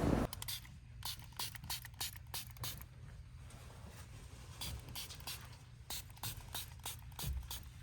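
Faint, irregular small clicks and taps over a low steady hum.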